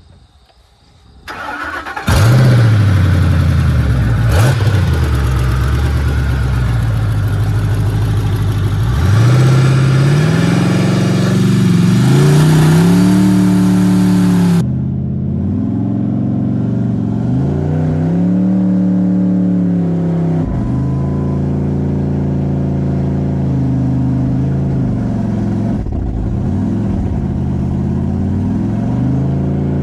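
Ford F-150 pickup engine, its oil drained and replaced with Dr Pepper, starting about a second or two in and then revved up and down again and again to high rpm. It is being run without real oil until it seizes. The sound turns duller about halfway through.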